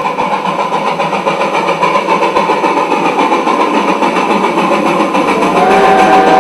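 Steam locomotive running with a fast, steady chuffing, its whistle sounding about five seconds in.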